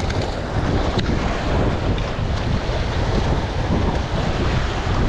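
Wind buffeting the microphone over waves washing against rocks, a steady rushing noise.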